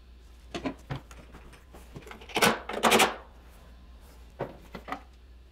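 Tools and wood being handled: scattered light knocks and clicks, with one louder scraping noise about two and a half seconds in that lasts under a second.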